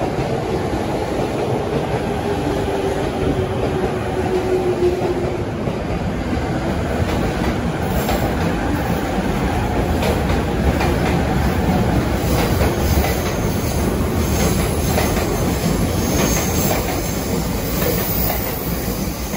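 Yellow-striped Chūō-Sōbu Line local electric commuter train running along a sharply curved platform and pulling away, with a steady rumble. From about halfway through the wheels clatter over rail joints, with some high wheel squeal from the curve.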